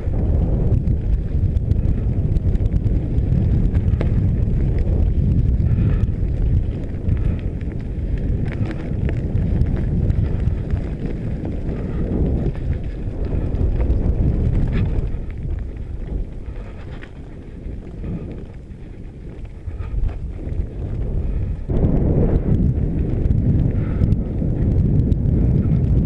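Mountain bike riding fast down a dirt forest trail: a heavy wind rush on the microphone over the tyres rolling on dirt, with scattered knocks and rattles. The rush eases for a few seconds about two-thirds of the way through, then picks up again.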